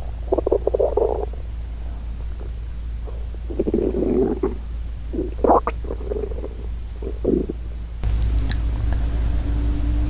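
A hungry human stomach growling and gurgling in several irregular bouts of rumbles and bubbly squelches, heard at close range.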